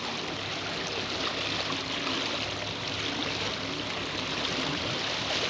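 Water rushing and splashing along the hull of a small fishing boat under way at trolling speed: a steady hiss, with a faint low engine hum beneath.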